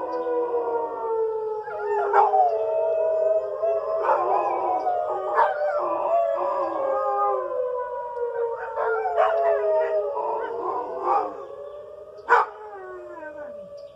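Dogs howling along with a tornado siren sounding its weekly test. The siren's long tone slowly falls in pitch, then starts rising again about ten seconds in, while the wavering howls ride over it and die away near the end, with one brief sharp sound just before they stop.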